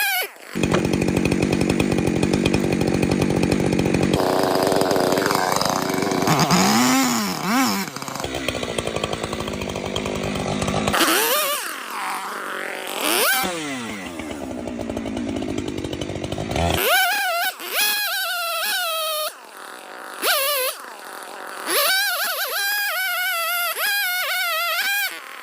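Angle grinder with a wood-cutting blade running and cutting into a tree, its pitch dipping and rising a few times as it cuts. It stops at about 17 s, and music with a wavering sung melody plays for the rest.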